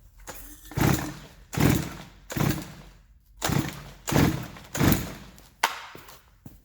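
A series of six dull knocks a little under a second apart, followed by a sharper click near the end.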